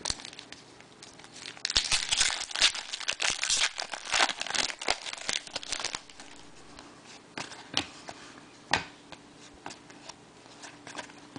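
Plastic card-pack wrapper crinkling and tearing for a few seconds as a pack of trading cards is opened, followed by a few scattered clicks and rustles of the cards being handled.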